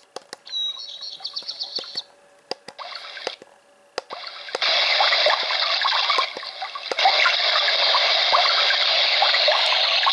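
A digital alarm clock's built-in sound machine plays a running-water nature sound through its small speaker, stepping up in volume in stages as its buttons are pressed. Sharp button clicks and a brief high chirping sound come first.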